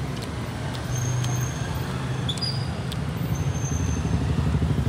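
Steady city street traffic: motor vehicles running with a continuous low rumble, and a few faint, brief high-pitched tones over it.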